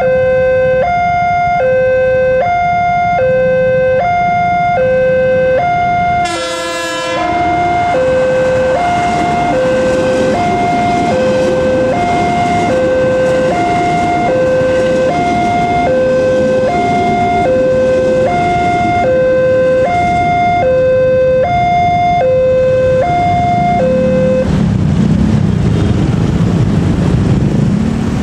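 Railway level-crossing electronic warning bell, alternating a lower and a higher tone about once a second, with a brief break about six seconds in. Under it a commuter electric train rumbles past. The warning tones stop about 24 seconds in, and a heavier low rumble of road traffic rises.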